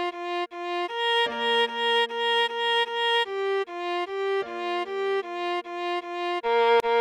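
Viola playing a melody of short repeated notes, about three a second, at half speed for practice, over a lower held accompanying note that changes a couple of times.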